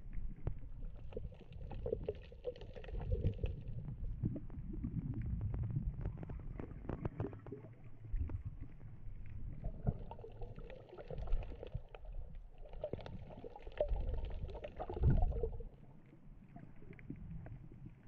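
Muffled underwater sound picked up by a camera held below the surface. Water rumbles and sloshes against the housing, with scattered small knocks. The sound swells brighter and louder three times: once near the start and twice in the second half.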